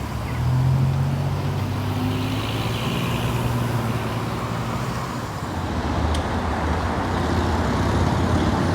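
Road traffic passing close by: a steady motor-vehicle engine drone with tyre noise.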